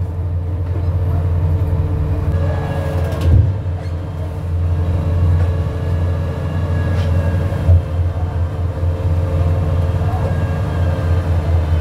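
Fishing boat's engine running steadily with a low hum, and a couple of short knocks about three and a half and eight seconds in.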